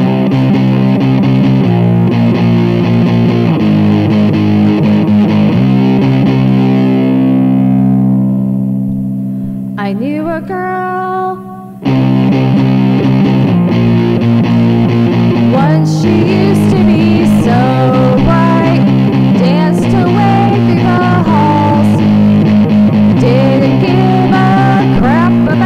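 Distorted electric guitar playing a rock riff of chords. Near the middle, one chord is held and dies away, a few bent single notes follow, and it cuts off suddenly before the riff comes back. A lead line with bent notes then plays over the chords.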